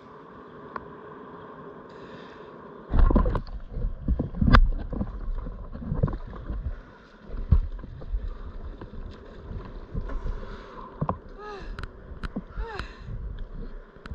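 Seawater sloshing and splashing around the camera of an open-water swimmer, in irregular loud surges from about three seconds in. Near the end come a few short, pitched calls that rise and fall.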